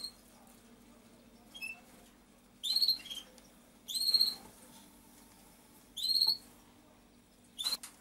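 A bird peeping: six short, high-pitched calls, each with a quick rise in pitch, a second or so apart, the middle ones the loudest.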